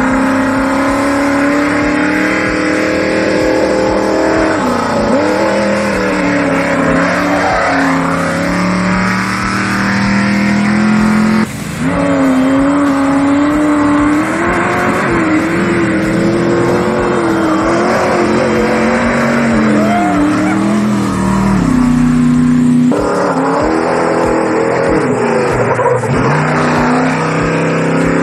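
Off-road race vehicle engines running and revving, the pitch rising and falling, with abrupt changes about 11 and 23 seconds in.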